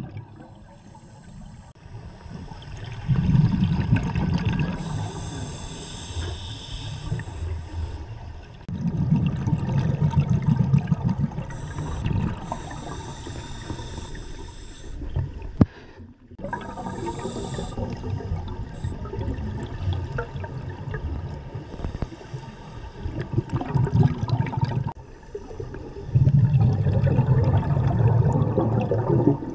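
Scuba diver breathing through a regulator underwater: a hiss on each inhalation alternating with a rumble of exhaled bubbles, a breath every several seconds.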